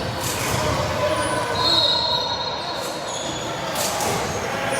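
Basketball game sounds: a ball bouncing and sneakers squeaking on the court, the longest squeak about two seconds in, over background voices.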